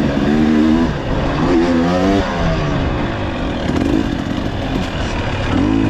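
Dirt bike engine revving up and down in repeated blips on a rocky trail, the pitch rising and falling with each throttle burst, over a steady mechanical clatter.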